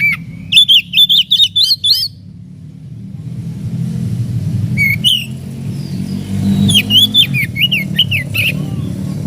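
Oriental magpie-robin (kacer) calling in two bursts of quick, harsh chirps, with one lone call between them, over a steady low rumble.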